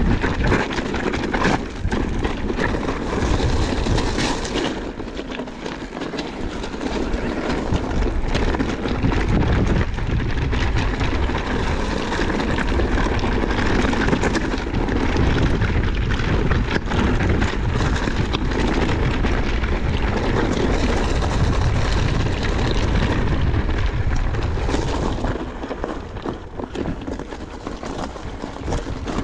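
Electric mountain bike ridden over a rocky trail: steady wind rumble on the camera microphone, with tyres crunching over loose stones and the bike rattling and knocking over bumps. It eases off a little near the end.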